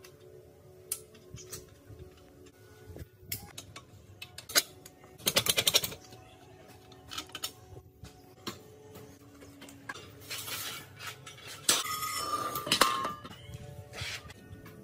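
Metal parts and hand tools clinking and knocking as they are handled, with a short burst of rapid clicking about five seconds in and stretches of scraping later on, over faint background music.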